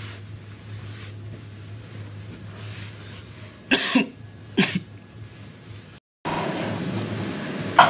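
A person coughing twice, about a second apart, over a steady low hum of room tone. Near the end the sound cuts out briefly and comes back as a louder steady hiss.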